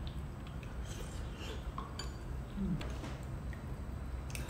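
Metal spoons clinking lightly against ceramic soup bowls during eating: a few scattered clinks, the clearest near the end, over a faint low hum.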